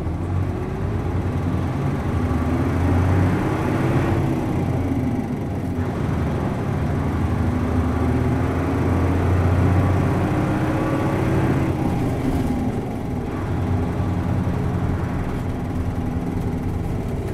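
Hino M10U engine of a 1994 Blue Ribbon bus pulling under acceleration, heard from inside the cabin. Its note climbs, drops back at an upshift of the five-speed manual gearbox about four seconds in, climbs again, then eases off and picks up once more.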